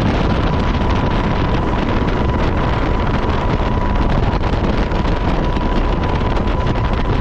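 Steady wind rushing over the microphone, with a constant high tone running through it.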